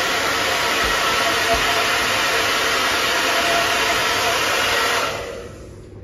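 Hand-held hair dryer blowing steadily, then switched off about five seconds in and winding down.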